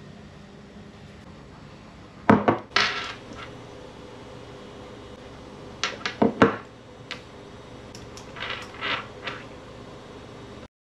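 Crockery clatter: a ceramic mug knocking and clinking against hard surfaces in a few short, sharp groups, over a low steady room hum.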